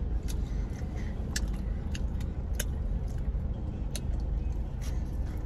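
Steady low rumble of a car idling, heard from inside the cabin, with a few faint scattered clicks of chewing fries.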